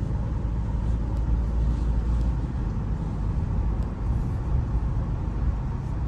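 Steady low rumble of road and engine noise from a moving car, heard from inside the cabin.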